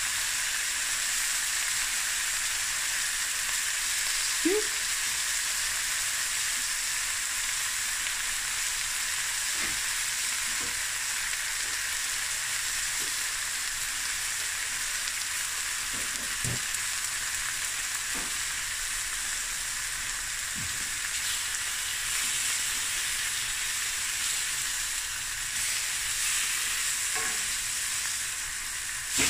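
Slices of spiced beef and chicken pastrami sizzling steadily in hot oil in a stainless steel frying pan, with a few faint ticks through it. Near the end a wooden spatula moves the slices in the pan.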